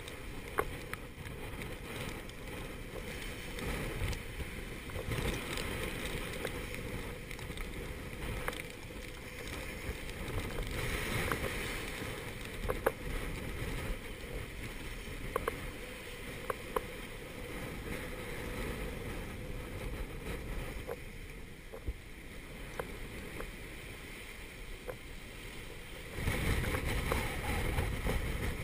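Gale-force wind buffeting the microphone over the rush of breaking seas around a small sailboat's stern, with a few short knocks. The noise grows louder near the end.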